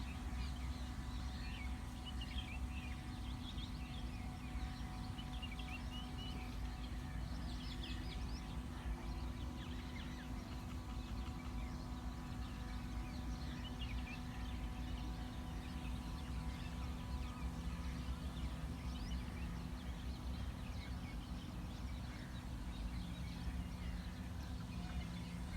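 Many small birds chirping throughout, over a steady low rumble and a constant hum.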